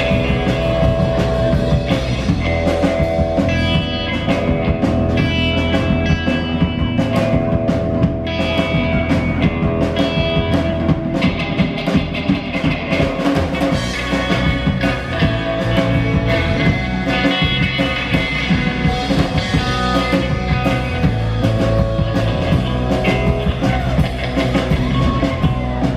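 Live rock band playing an instrumental passage: electric guitar lines over a steady drum kit and bass.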